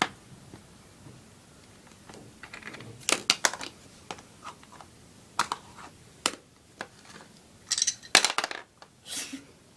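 Plastic Play-Doh playset pieces clicking and knocking as pink dough is loaded into the toy froster: irregular sharp taps and clacks, with several quick clusters.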